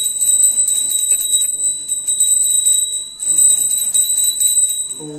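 Small brass puja hand bell (ghanta) rung continuously with rapid strokes, giving a steady high ring. It breaks off briefly about three seconds in, then resumes and stops at the end.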